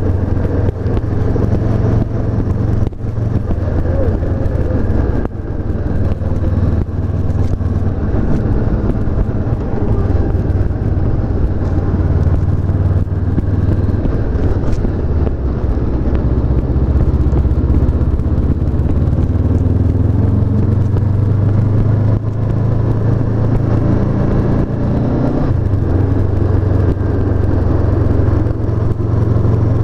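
Honda CB500F's 471 cc parallel-twin engine running while the bike is ridden. The engine note shifts up and down with throttle and speed, with a brief rise about three-quarters of the way through.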